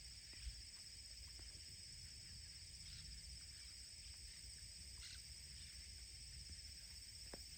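Steady, high-pitched chorus of insects such as cicadas or crickets, unbroken throughout, over a faint low rumble, with a few faint ticks.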